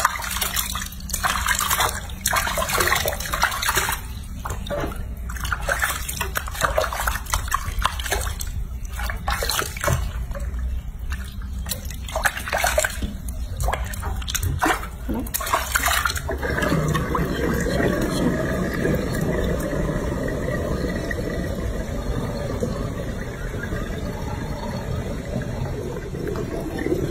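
Water splashing and pouring in a sink basin as a hand scoops it over a bathing baby monkey, in irregular splashes. About sixteen seconds in it gives way abruptly to a steady, duller rushing noise.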